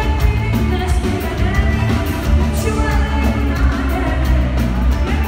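Live pop band playing loud, with a woman singing over a steady drum beat, electric guitar and heavy bass.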